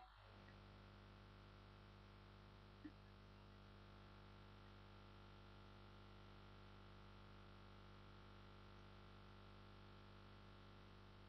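Near silence: a faint steady electrical hum with low hiss, and one tiny click about three seconds in.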